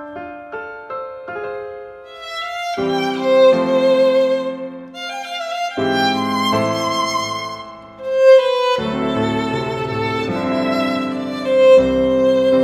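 Background music: a few soft piano notes, then a violin playing slow, held notes with vibrato over low sustained chords.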